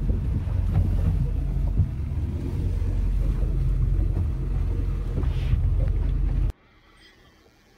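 Fishing boat's engine running at slow trolling speed, heard from the helm as a steady low rumble that cuts off suddenly about six and a half seconds in.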